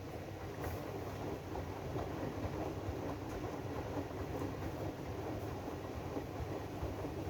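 AEG DualSense washing machine running its Drum Clean cycle, its drum turning with a steady mechanical rumble that grows slightly louder about a second in.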